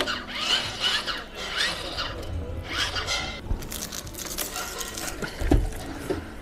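MaxxFan roof vent's lid mechanism being opened to its widest, giving a run of short rising squeals, followed by a knock about five and a half seconds in.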